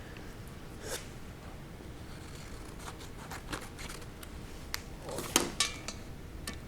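Scattered light clicks and short rustles of small objects being handled, with a brief louder squeak and scrape a little past five seconds in.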